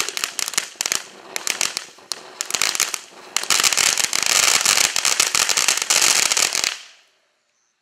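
Winda Neon Jelly Beans ground fountain firework spraying and crackling: a dense hiss full of rapid crackles and pops. It eases off about a second in, surges again about three and a half seconds in, then cuts out shortly before the end.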